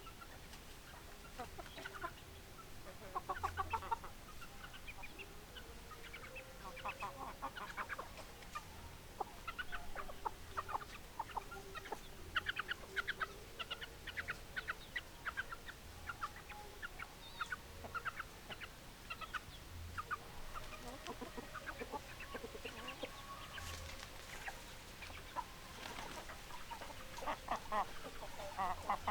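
Several chickens (hens) clucking, in clusters of quick, short clucks that come and go throughout, mixed with a few longer, lower drawn-out calls.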